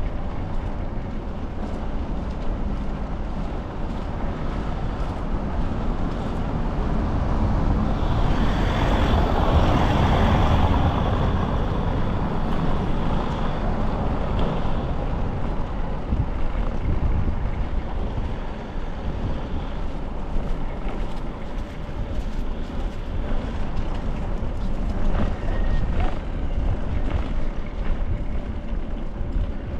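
Road noise of a bicycle riding over brick paving: a steady rumble of the tyres on the bricks, swelling louder for a few seconds about eight seconds in.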